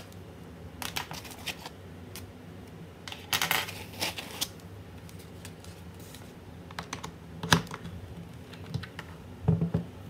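Irregular clicks and knocks of a plastic typewriter-style keyboard being handled while a foam packing insert and a metal stand are lifted out and set against it. The sharpest knock comes about seven and a half seconds in.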